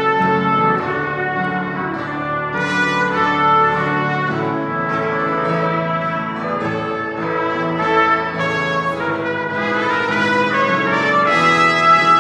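Live trumpet and a second brass horn playing a melody together in held notes, over piano accompaniment.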